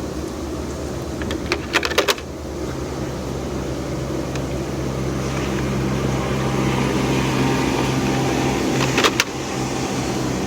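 Steady machine hum that gains a low droning tone a few seconds in, with a quick clatter of sharp clicks about two seconds in and another near the end.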